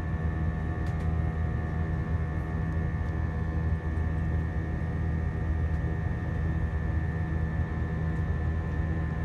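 Steady cabin drone of an Airbus A321 in its climb after takeoff: engine and airflow noise heard from inside the cabin, low and even, with a thin steady whine above it.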